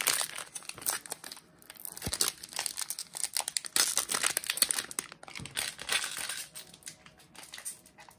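Foil trading-card pack wrapper crinkling and crackling in the hands in irregular bursts as it is worked at and torn open; the pack is tightly sealed.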